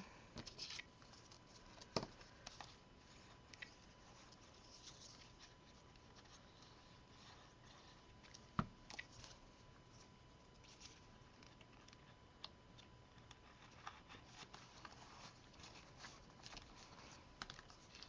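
Near silence: faint rustles and light taps of cardstock pieces being handled and slid into place, with two sharper clicks, about two seconds in and at about eight and a half seconds.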